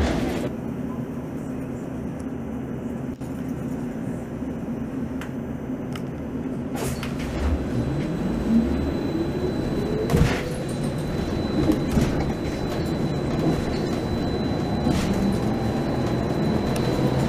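Interior of a Neoplan AN460LF dual-mode bus running on its Skoda electric drive: a steady hum at first, then a whine rising in pitch about eight seconds in as the bus pulls away. A few short knocks are heard.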